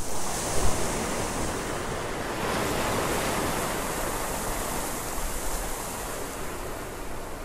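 Steady rushing wash of ocean surf, easing off a little toward the end.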